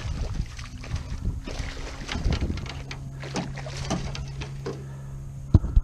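A spotted seatrout thrashing and splashing in a landing net as it is lifted from the water into a canoe, with knocks and clunks of the net and handle against the hull and a sharp loud knock near the end. A low steady hum runs through the middle.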